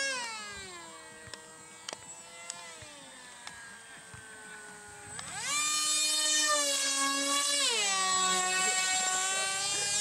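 RC model Su-37 jet's motor whining in flight. The pitch falls away over the first second or two to a quieter low hum, climbs sharply back to a loud high whine about five seconds in, and steps down somewhat near eight seconds.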